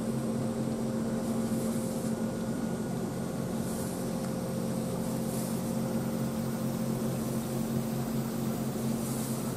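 EF63 electric locomotive standing with its auxiliary machinery running: a steady hum with several held low tones, and a few faint brief high hisses.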